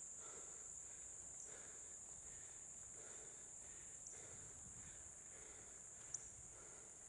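Faint, steady high-pitched insect chorus, with a single brief click about six seconds in.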